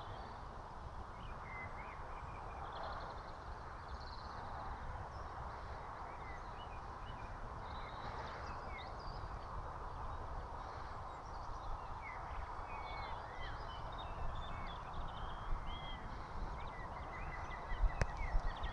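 Dawn birdsong: several small birds chirping and warbling over a steady background hiss. Bumps of the camera being handled come near the end.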